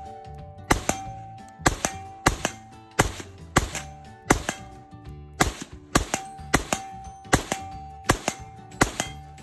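Gunfire at an outdoor range: about twenty shots in quick, irregular strings, some in close pairs, varying in loudness, with background music running under them.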